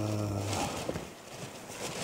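A man's voice holding a steady-pitched vowel sound for just over half a second, then a short pause with a few faint clicks.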